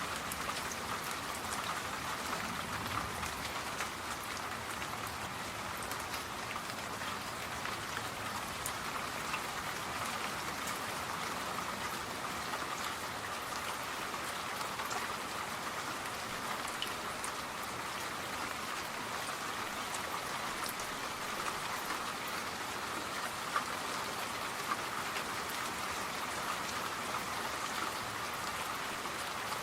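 Steady rain falling, an even patter with scattered individual drop ticks.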